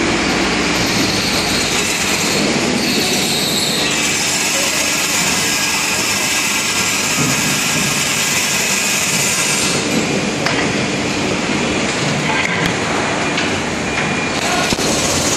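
Loud, steady industrial machinery noise in a foundry workshop: a dense rushing hiss over a low hum. The hiss eases about ten seconds in, and a few sharp metallic clicks follow near the end.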